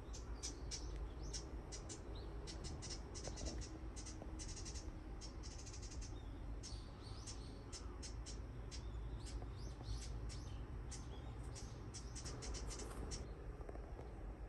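Small birds chirping in quick, short, high notes, several a second, stopping shortly before the end.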